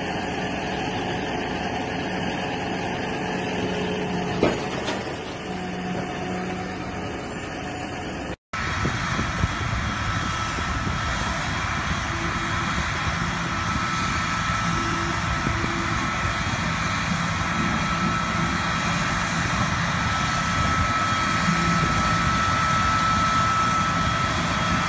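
Farm tractor engine running steadily while it pulls a large seed drill across a field, with one short sharp click about four and a half seconds in. After a brief dropout a little past eight seconds, a tractor keeps running with a steady thin high whine over the engine.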